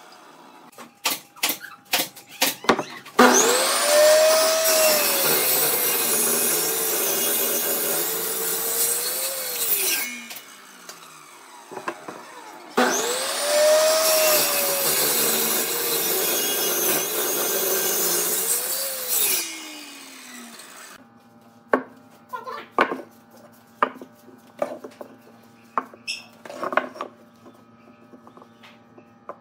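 Table saw cutting through a glued-up laminated wood block twice, each cut lasting about six seconds, with the blade's tone bending up and down under load. The blade runs quieter between the cuts. A few wooden clicks come before the first cut, and after about 21 seconds there are light knocks of wooden segments being fitted together on a bench.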